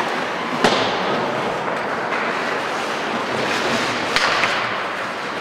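Ice hockey play in a rink: a steady wash of rink noise and skates on the ice, with two sharp knocks from sticks and puck, one under a second in and one about four seconds in.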